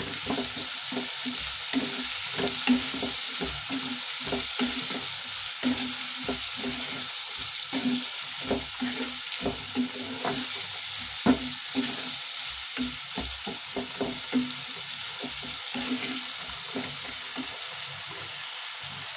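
Sliced onion, carrot and tomato sizzling in hot oil in a non-stick kadhai, with a spatula stirring and scraping through them and knocking against the pan many times.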